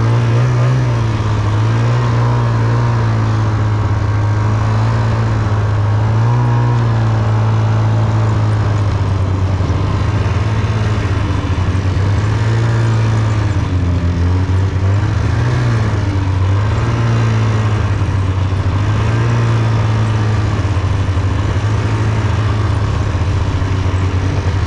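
Snowmobile engine running steadily while riding through snow, its pitch rising and falling a little with the throttle.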